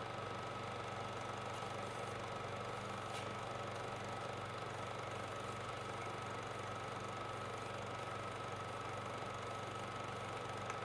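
Old film projector running: a steady low mechanical hum with a fine rapid flutter, a thin constant high whine and light hiss.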